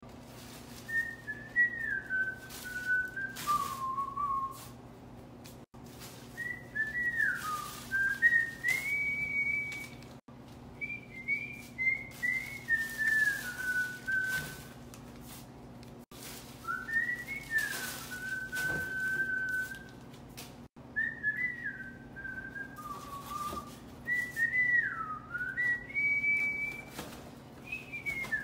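A person whistling a tune in short phrases that glide up and down in pitch, with bursts of plastic-bag rustling in between.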